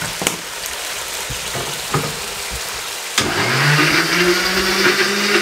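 Electric countertop blender starts about three seconds in: its motor spins up with a quick rising whine, then runs steadily, grinding tomato, garlic, ginger and green chillies with a little water into a paste. Before that, a few clicks over a soft sizzle.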